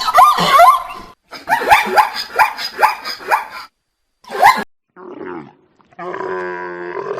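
Dog barking in quick runs of high yaps, about three a second, with a last single bark about four seconds in. Near the end a different, drawn-out animal call begins.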